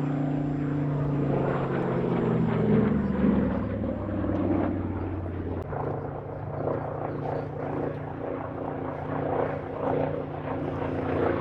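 SAAB B17's radial piston engine droning past in a display flypast, its pitch dropping a few seconds in as it goes by, then running steadily at the lower pitch.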